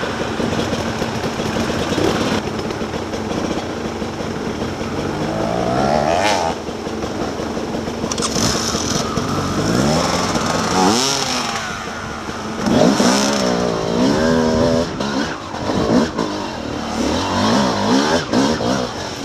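Dirt bike engine running under the rider, revving up and falling back again and again as the throttle is worked along a rough trail.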